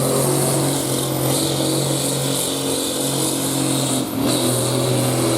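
Farm tractor engine running flat out at a steady high pitch while pulling a weight sled down the track, with a brief dip in the note about four seconds in.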